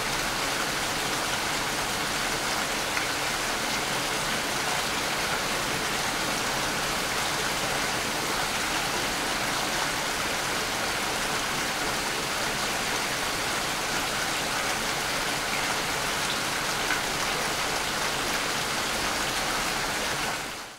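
Steady rain falling, an even dense hiss with a few distinct drop ticks, fading out quickly at the very end.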